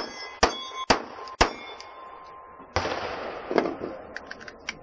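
Four quick 9 mm Glock pistol shots about half a second apart, each followed by the ring of a steel target plate. About three seconds in comes a burst of noise, then a run of light clicks.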